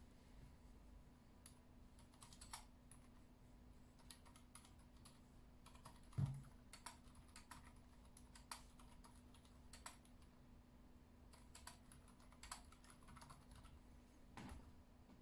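Quiet typing on a Yui40 40% mechanical keyboard with unlubed Gateron Silent Brown switches and PBT keycaps: soft keystrokes at an irregular pace, with one heavier thump about six seconds in.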